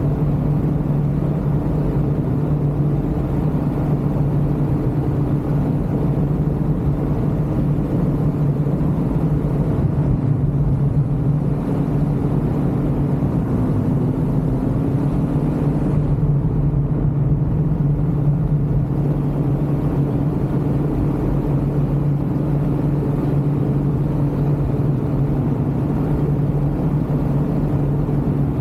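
Ultralight aircraft engine and propeller running steadily in flight, a constant droning hum with only slight shifts in pitch.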